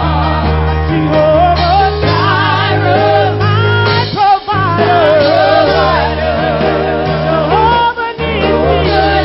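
Gospel praise team singing live with band accompaniment: wavering lead and backing voices over a steady bass line. The sound briefly dips about four seconds in and again near eight seconds.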